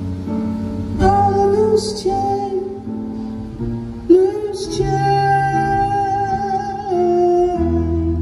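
A band playing live: a male singer holding long, high sung notes over electric guitar, with two phrases starting about one second and four seconds in, heard from the crowd.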